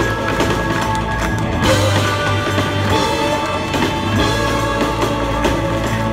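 Live rock band playing: drum kit, bass and electric guitars, with a horn section.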